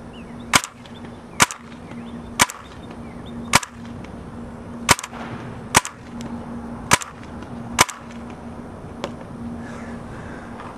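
Tippmann A5 paintball marker firing eight single shots about a second apart, each a sharp pop.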